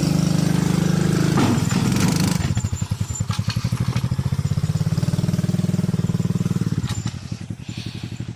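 A four-wheeler's engine revs hard for the first couple of seconds, then runs on more softly and eases off near the end. There is a brief clatter about one and a half to two seconds in.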